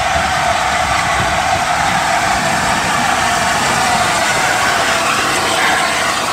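LNER A4 Pacific steam locomotive 60007 Sir Nigel Gresley passing close by at low speed: a steady, loud rushing noise with no distinct exhaust beats.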